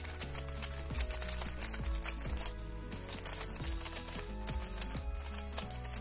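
Rapid, irregular plastic clicking of a stickerless 3x3 speed cube's layers being turned quickly through a repeated algorithm sequence. Background music plays under the clicks.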